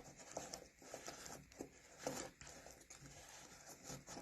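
Plastic gears of a spinning-gears board book being turned by hand: faint, irregular clicking and rattling.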